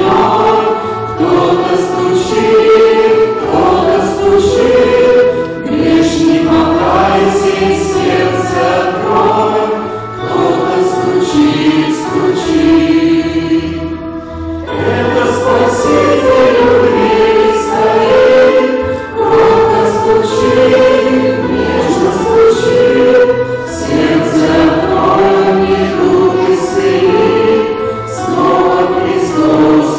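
Choir singing a slow Russian Christian hymn in steady phrases, with a brief break between phrases about halfway through.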